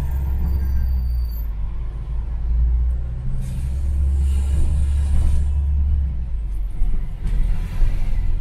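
London bus engine rumbling steadily, heard from on board, with two spells of hissing, the first about three seconds in and the second near the end.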